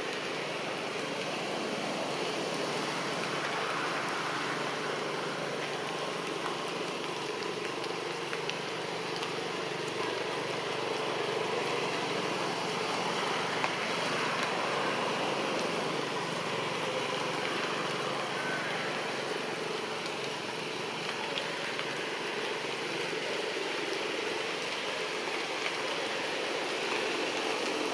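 Steady rushing outdoor background noise with no distinct calls, with one small tick about halfway through.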